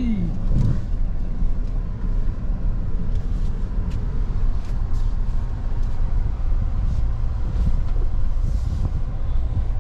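Toyota Tundra heard from inside the cab while driving an off-road trail: a steady low rumble of engine and tyres, with a few faint clicks and knocks.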